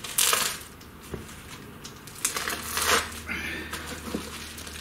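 A knife slicing through plastic packaging wrap and tape on a long wrapped rail, with crinkling and tearing in a few short bursts, the loudest just after the start.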